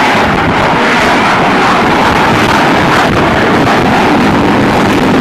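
F-35B fighter jet's single F135 turbofan at takeoff power as the jet climbs out just after lift-off: a loud, steady jet roar.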